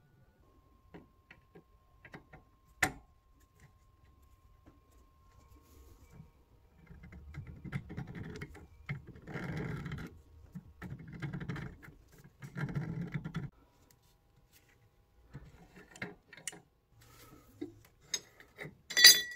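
Tap reseating tool being turned by hand against the seat inside a brass tap body: four bouts of rough metal scraping as the cutter grinds the valve seat, with scattered clicks of the tool being handled and one sharp knock near the end.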